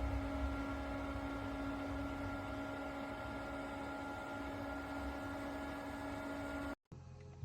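Small USB-powered evaporative cooler fan running: a steady motor hum with a few constant tones over a soft rush of air. It cuts off abruptly near the end.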